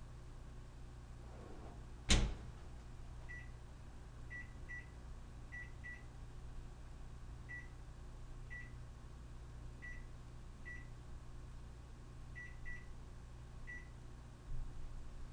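About a dozen short electronic beeps on one pitch at irregular intervals, some in quick pairs, like the keys of a beeping keypad being pressed, over a steady low hum. A single sharp knock sounds about two seconds in.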